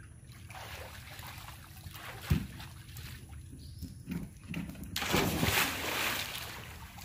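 A sharp knock about two seconds in and a few lighter thuds, then a big splash about five seconds in, lasting about a second, as a swimmer jumps into a backyard swimming pool.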